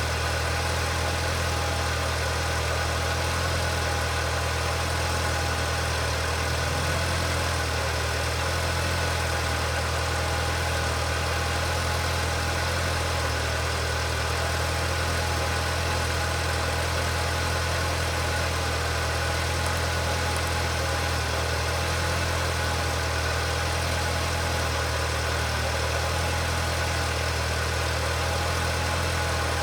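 An engine idling steadily: a constant low hum with a faint steady higher tone above it, unchanging throughout.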